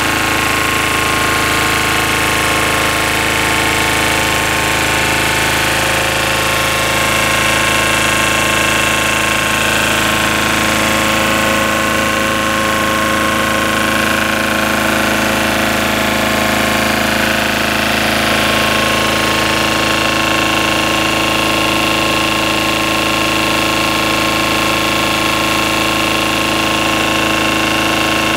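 Lombardini two-cylinder diesel engine of a generator set running steadily at constant speed.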